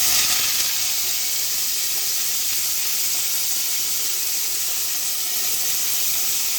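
Bitter gourd frying in hot oil in a kadai: a steady sizzle that comes in suddenly and holds even.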